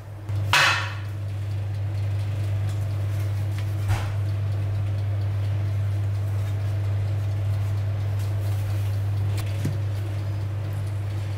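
Kitchen handling sounds: a sharp metallic clatter about half a second in, like a metal baking tray set down on a wooden cutting board. A lighter knock follows near four seconds and a small tap near the end, all over a steady low hum.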